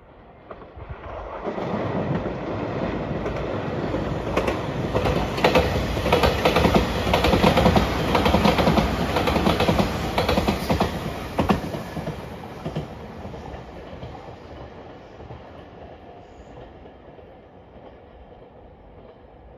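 JR Shikoku 8000 series electric limited express train passing at speed, its wheels clicking over the rail joints. It builds from about a second in, is loudest in the middle, and fades away over the last several seconds.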